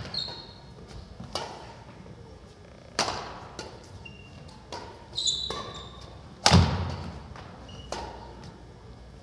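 Badminton doubles rally on a wooden gym floor: sharp racket-on-shuttlecock hits and footfalls about every second or two, with brief squeaks of sneakers on the floor, all echoing in the hall. The loudest is a heavy thud about six and a half seconds in.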